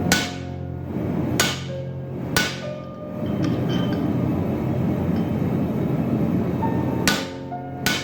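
Hand hammer striking a blacksmith's fuller tool, metal on metal with a ringing note after each blow. There are three blows in the first two and a half seconds, a pause, and then two more near the end.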